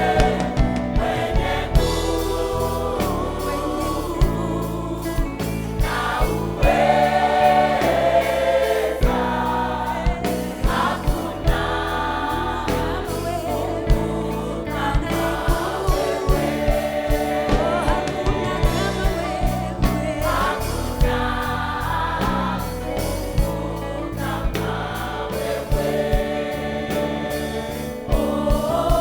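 Gospel music with a choir singing over a band with a steady drum beat and bass.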